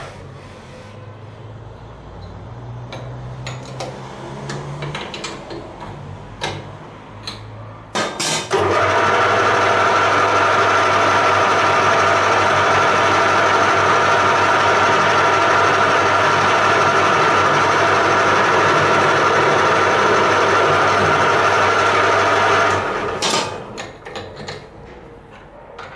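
Homemade belt grinder starting up about a third of the way in and running at a steady, even pitch, then stopping near the end. Scattered clicks and knocks come before and after the run.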